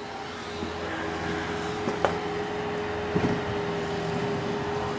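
Engine of a Bobcat skid-steer loader clearing snow, running steadily with a low hum. A few faint clicks come about two and three seconds in.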